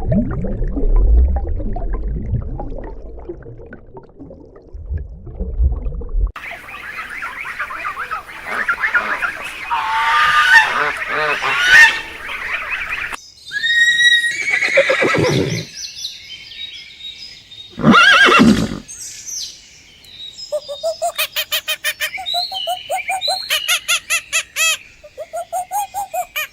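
Farm animals calling in a string of short clips. A low rumble runs for about the first six seconds, then a busy chorus of bird calls, then a few single loud calls, and a rapid pulsed call fills the last several seconds.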